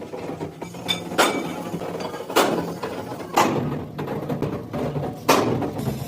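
Hammer blows on a metal wheel rim: four sharp strikes at uneven intervals of about one to two seconds, each ringing briefly.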